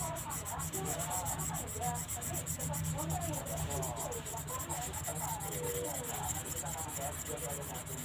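Felt-tip twin marker scribbling quickly back and forth over paper to fill in colour, a steady rubbing of quick, even strokes, about eight a second.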